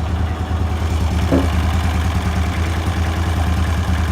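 V-twin engine on a custom mini bike idling steadily.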